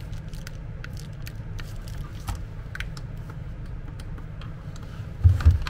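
Scattered light clicks of the lift's plastic hand-pendant buttons and control box being handled, over a steady low hum, with two dull thumps about five seconds in. No motor runs: the control unit does not respond to the buttons.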